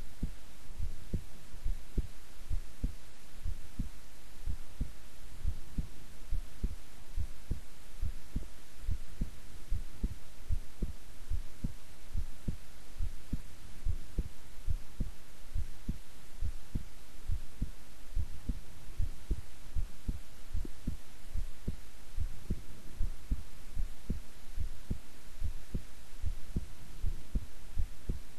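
A woman's heartbeat recorded close up, at rest: a steady, even run of low, soft lub-dub thumps.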